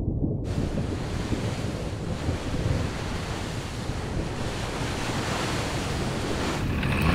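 Stormy sea: waves and wind, a steady rushing noise that swells in about half a second in over a low rumble. Near the end a few steady tones join it.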